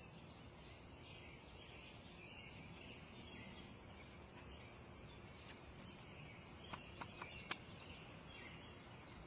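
Quiet outdoor ambience with faint bird chirping. A few short, light clicks come about seven seconds in.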